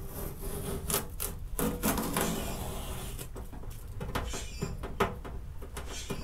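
Masking tape being peeled off a car's painted body panel beside freshly fitted side molding: rubbing, crackling noise with scattered sharp clicks.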